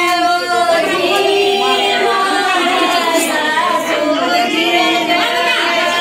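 A group of women singing together, a devotional song of the Gangaur puja, the voices overlapping in long wavering notes.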